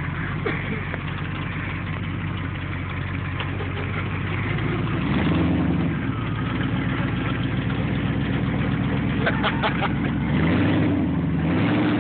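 Dodge pickup's engine running at a steady low idle, then revving up about five seconds in and holding higher revs, and revving again near the end, while the truck sits bogged down in deep mud.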